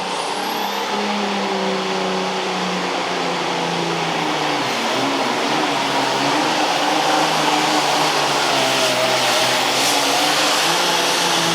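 Turbocharged diesel engine of a Super Farm pulling tractor running flat out under load down the track, a loud, steady engine sound that grows a little louder as the run goes on.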